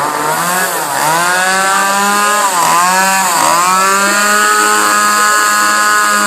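Small gas chainsaw with a 12-inch bar running steadily at a fast idle, its throttle held part-open with tape so the chain does not spin at full speed. The engine note dips briefly in pitch several times and recovers.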